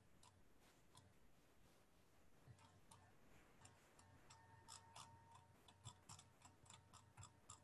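Near silence broken by faint computer-mouse clicks, scattered at first and more frequent in the second half.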